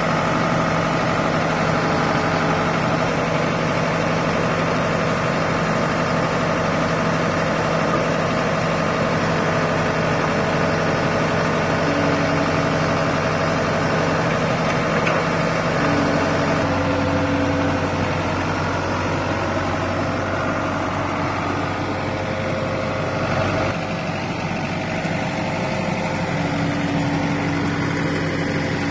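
Excavator engine running steadily, its note changing in steps a little past halfway and again about three quarters through.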